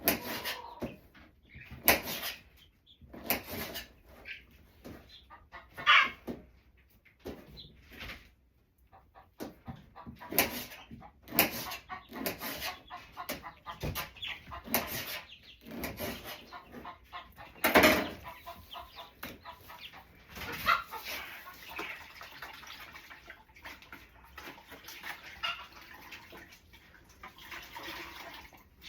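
Chickens clucking, with a run of irregular sharp knocks.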